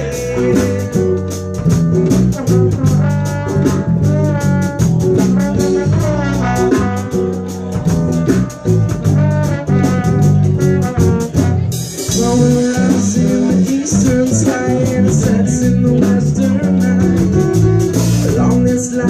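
Live band playing an instrumental break: electric guitar, bass and drums, with a lead instrument carrying a bending melody line over a steady beat.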